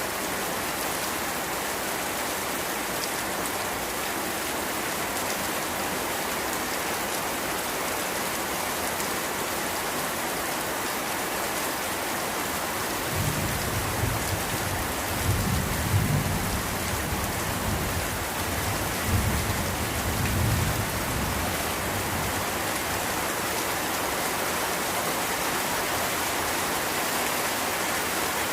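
Steady rain falling in an even hiss, with a low rumble of thunder rolling for several seconds around the middle, swelling with a few louder peaks before it fades.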